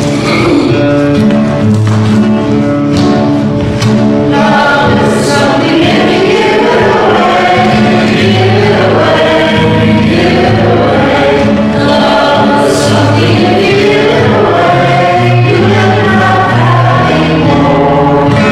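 A song with a choir singing over held bass notes from the backing instruments, in a gospel style.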